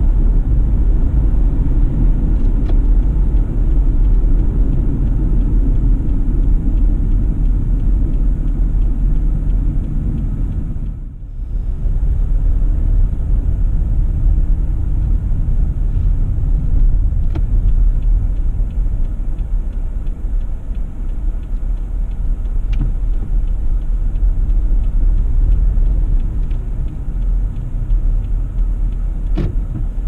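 Car driving along a road: steady low rumble of tyre and engine noise, which briefly drops away about eleven seconds in. A few faint ticks sound over it.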